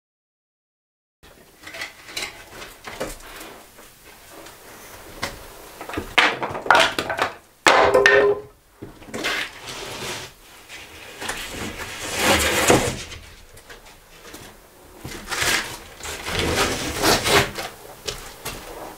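OSB boards being lifted and slid off a stack: wood scraping and rubbing against wood, with knocks, in several uneven bursts starting about a second in.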